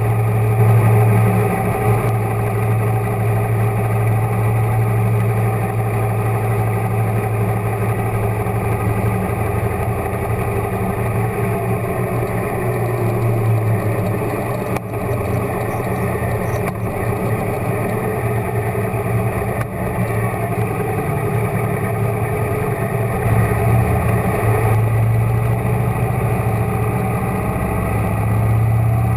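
Motorcycle engine running at a steady, easy cruise, a continuous low drone whose pitch eases down slightly about halfway through.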